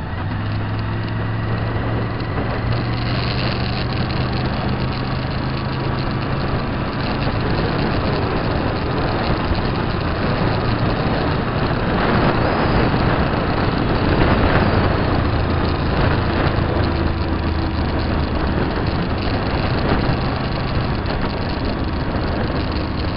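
Motorcycle engine running at road speed under a heavy rush of wind and road noise. The engine note steps to a new pitch a few times as the speed changes.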